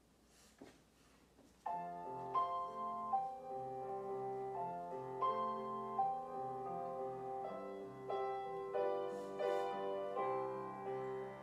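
Upright piano played solo: a gentle melody of held notes over a low bass line, starting about a second and a half in after a near-silent moment.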